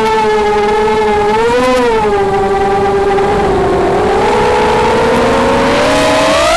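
The brushless motors (Cobra 2204 2300KV) of a 180 mm FPV racing quadcopter whine, heard through the onboard camera. The pitch holds steady and sags slightly about two and four seconds in, splitting into two close tones. Near the end the whine rises as the throttle comes up during a dive toward the grass.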